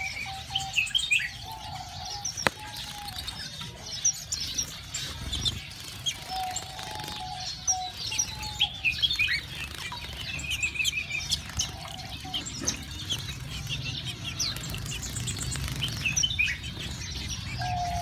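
Many aviary finches and waxbills chirping and calling together, short high chirps and quick trills, with a lower repeated call now and then. Splashes and wing flutters from birds bathing in a shallow birdbath.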